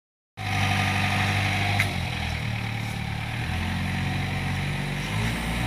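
Diesel engine of a Doosan 55W excavator running steadily, its pitch shifting about two seconds in and again near the end as the load changes. A single sharp click just before the first shift.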